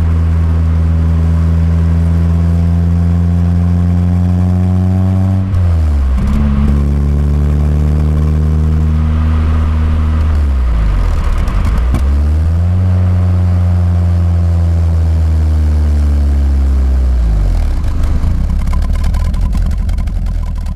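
Alfa Romeo 155 2.0 Twin Spark's four-cylinder engine pulling uphill under load. Its pitch climbs steadily, drops sharply about five seconds in and picks up again, falls away for a couple of seconds near the middle, then climbs once more before dropping off near the end.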